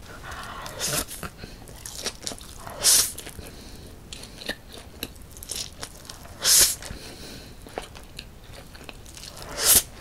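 A person slurping and chewing spicy cold mixed noodles (Buldak bibimmyeon), with four loud short slurps about a second in, at three seconds, at six and a half seconds and near the end, and wet chewing in between.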